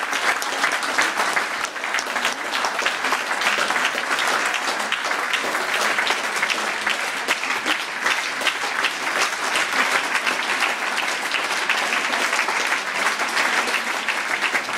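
Large opera audience applauding in a standing ovation: dense, continuous clapping from many hands, steady throughout.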